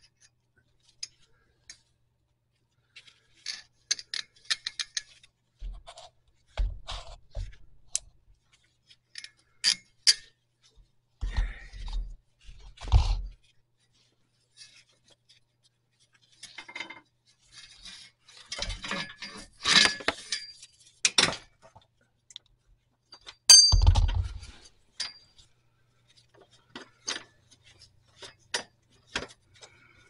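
Intermittent metallic clinks, scrapes and rattles of a steel parking brake cable and its hardware being handled and fitted under a car by gloved hands, with a few dull knocks, the loudest about three-quarters of the way through.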